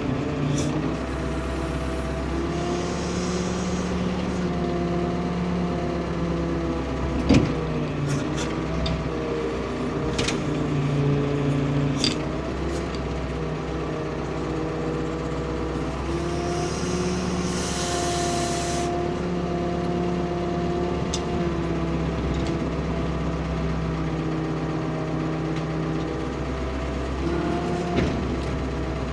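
Ford P-42 excavator's diesel engine running under load, its note shifting up and down as the hydraulics work, with two hissing stretches and a few sharp knocks as the bucket works the root of a felled spruce.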